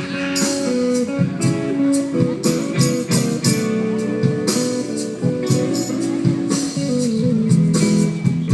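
Live band music led by guitar, with steady percussion.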